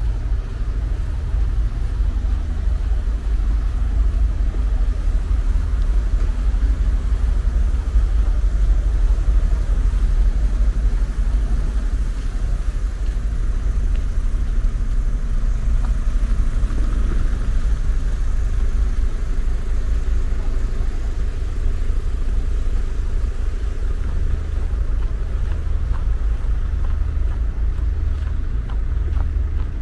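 City street traffic going by: a steady low rumble of cars on the road, with one engine rising in pitch about halfway through.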